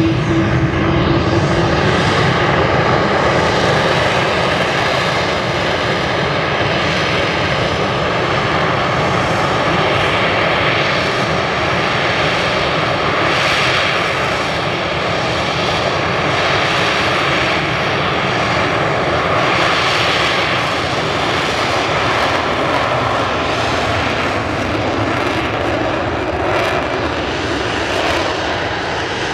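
BAE Hawk T2 jet trainers' Rolls-Royce Adour turbofan engines running: loud, continuous jet engine noise with a steady whine, swelling and easing a few times.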